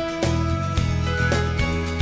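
Background music: steady instrumental track with held notes and a regular beat.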